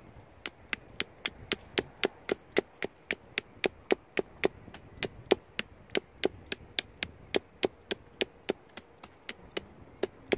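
Small steel hatchet of a Gootoop multitool chopping into the base of a thin sapling trunk: rapid, evenly spaced light strikes, about three to four a second.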